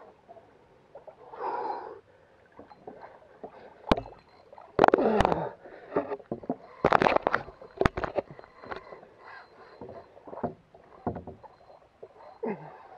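Irregular knocks, sloshing and splashing of water against a plastic fishing kayak as the angler moves and handles gear aboard. The loudest bursts come about five and seven seconds in, with a few sharp clicks among them.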